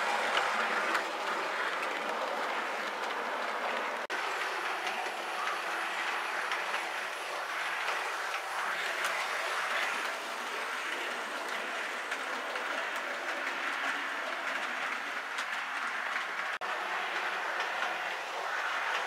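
Model railway train running along the track, a steady rolling rush with wheels clicking over the rail joints. Two very brief breaks in the sound come about 4 and 16.5 seconds in.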